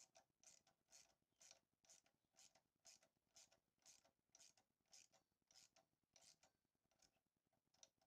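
Faint ratchet wrench clicking in short, even back-strokes, about two a second, as a bolt on a motorcycle's front fork is turned.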